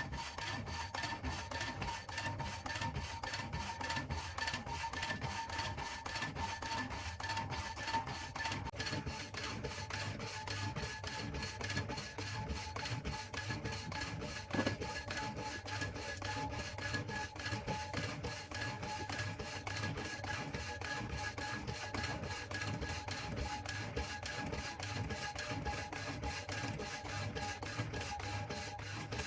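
Homemade wooden power hacksaw, driven through a belt by a washing machine motor, sawing steadily: rhythmic rasping strokes of the blade over a steady motor whine.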